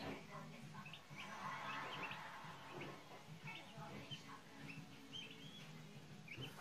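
A brood of small chicks peeping: short, high chirps, several a second, scattered irregularly, with a faint steady low hum underneath.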